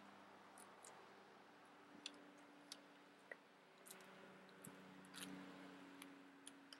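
Near silence: faint background hum with a few scattered faint clicks.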